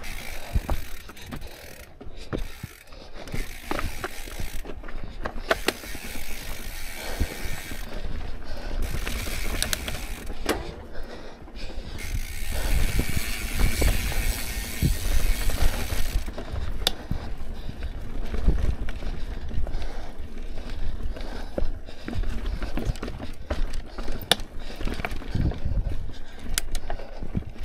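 Santa Cruz mountain bike rolling over rocky dirt singletrack: the rear hub's freewheel ratchet ticks while coasting, with the chain and bike rattling and clicking over bumps above a steady low rumble.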